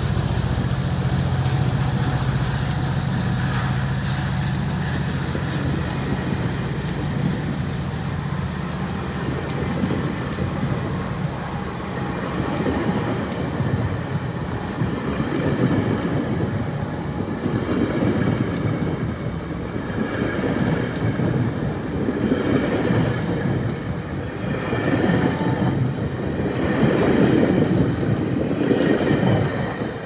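GO Transit bilevel passenger coaches rolling past on the rails, steel wheels clacking over rail joints in repeated groups that grow louder toward the end. A steady low hum underneath fades out about ten seconds in.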